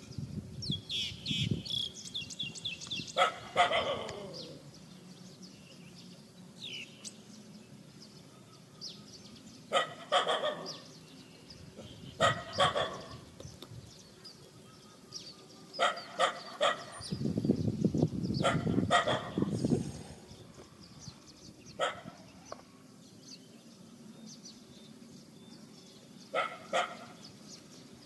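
A black-and-tan dog barking, single and double barks a few seconds apart. A low rumble lasts a few seconds about two-thirds of the way through.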